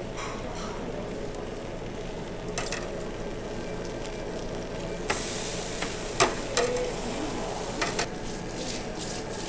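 Sauce-basted eel fillets sizzling on a wire mesh grill over a fire, with a few sharp clicks of metal tongs against the mesh as a fillet is turned over. The sizzle grows brighter and louder about halfway through.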